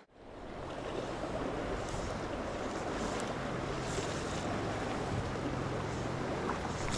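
River current running steadily past, with some wind buffeting the microphone; it fades up from silence in the first half second.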